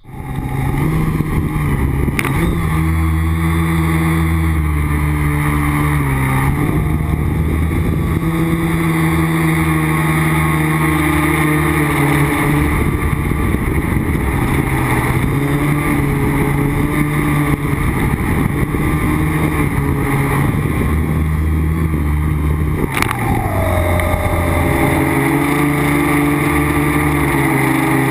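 Small electric quadcopter's motors and propellers buzzing as picked up by its onboard camera, the pitch stepping up and down with the throttle. Late on there is a sharp click followed by a short falling tone.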